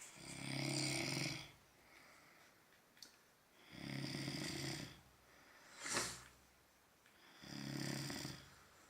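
A sleeping person snoring heavily: three long, low buzzing snores, one about every three and a half seconds, with a brief hiss of breath between the second and third.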